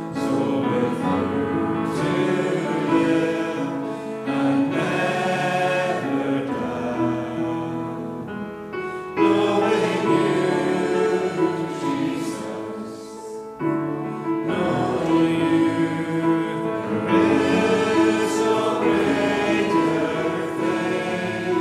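A choir singing a hymn in sung phrases, with short breaks about nine and fourteen seconds in.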